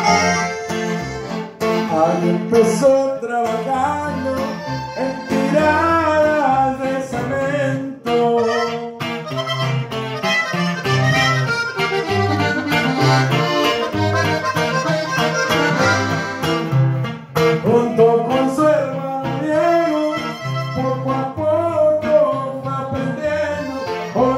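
A live corrido played on a button accordion carrying the melody, over guitar and a steady, regular bass pulse.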